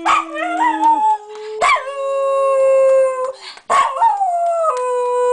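Jack Russell terrier howling: short wavering yowls at first, then two long held howls, the second sliding down in pitch.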